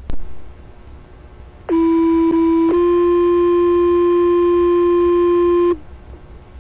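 Two-tone sequential fire-department paging alert over a radio scanner, the alert that sets off the station's pagers ahead of a dispatch. A click and steady radio hiss come first. About two seconds in, one steady tone sounds for about a second, then a slightly higher tone holds for about three seconds and cuts off sharply.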